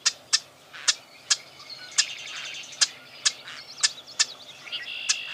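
Marsh wren calling: a series of sharp, dry clicks about twice a second, with a rapid rattling trill about two seconds in and a held high note near the end.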